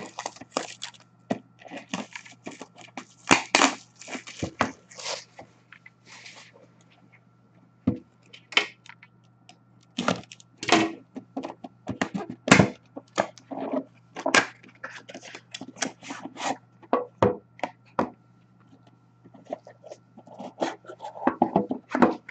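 A hockey card box and its packaging being torn open and handled: rustling and tearing, then many sharp, irregular clicks and crackles of cardboard and wrapping.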